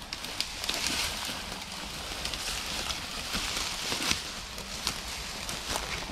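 Deer carcass being dragged through dry brush and leaf litter, with footsteps crunching and twigs snapping in quick irregular cracks.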